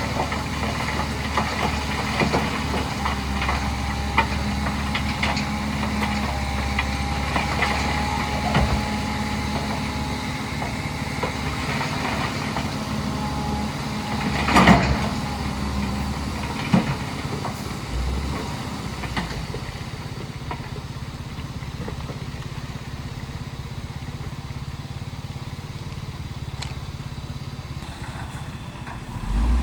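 Heavy diesel engine of earthmoving machinery running steadily, with scattered knocks and clanks; one sharp, loud knock about halfway through.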